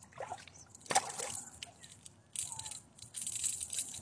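Handling noises while a bass is unhooked from a lipless crankbait: scattered clicks and a sharp knock about a second in, then two bursts of hissing noise near the end.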